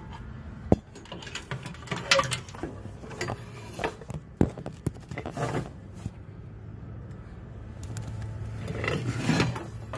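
Scattered light clinks, taps and rustles of hand and camera handling among the engine-bay parts, with a sharp knock about three-quarters of a second in. A steady low hum runs underneath.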